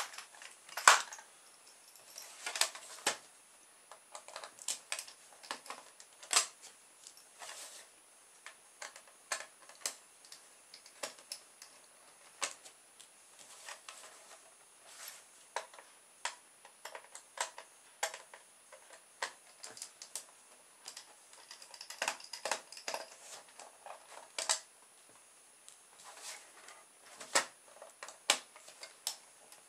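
Irregular light clicks and taps of a plastic VHS cassette shell being handled while its small crosshead screws are undone and set down on the table.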